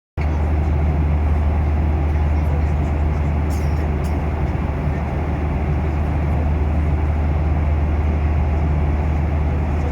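Steady cabin drone inside a Boeing 737-800 in flight: a deep engine hum under the rush of airflow, with a couple of faint ticks about three and a half and four seconds in.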